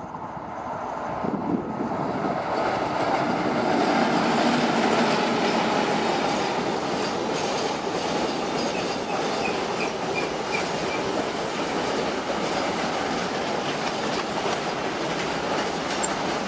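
Twin WCAM3 electric locomotives going past at speed, then a long container freight train rolling by. The wheels keep up a steady clickety-clack over the rail joints. The noise builds over the first few seconds as the locomotives pass close, then holds steady as the wagons go by.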